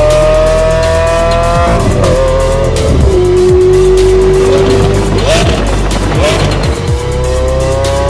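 Lamborghini Aventador's V12 engine pulling hard, its pitch climbing slowly, dropping at a gear change about two seconds in and holding lower, with two short revs about five and six seconds in, then climbing again near the end.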